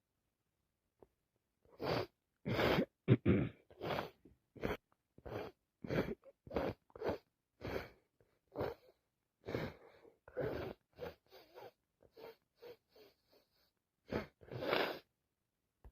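A woman with a head cold in a long fit of short, harsh bursts from the nose and throat, one or two a second, starting about two seconds in. The loudest comes about three seconds in, and the bursts grow weaker and quicker near the end.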